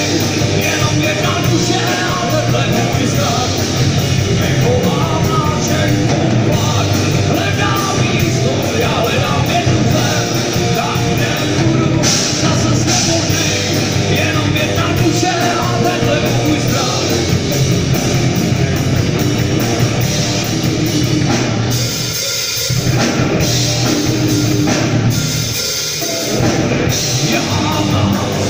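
Live rock band playing: electric guitars, bass and drum kit, with a man singing. The bass and drums drop out briefly twice in the last third.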